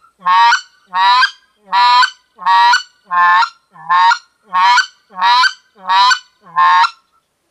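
Short-reed mouth call for white-fronted goose blown in an even series of about ten clucks, roughly one and a half a second. Each cluck carries a low note with it: clucking mixed with low sounds, as in goose-calling practice.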